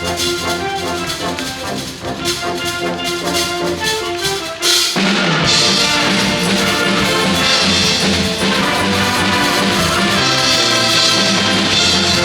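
School wind band with drum kit playing a Eurobeat-style Disney medley over a steady driving beat. About five seconds in, the full band comes in louder, with trumpets and trombones holding sustained chords.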